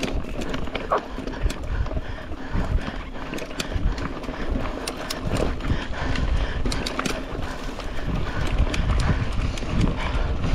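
Mountain bike ridden fast over a rough dirt trail: the bike clatters with many irregular sharp clicks and knocks over a steady low rumble.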